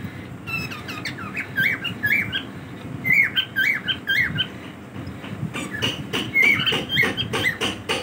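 Several cockatiels chirping in quick, repeated rising-and-falling calls, busiest from about one to five seconds in, with sharp clicks mixed in during the second half.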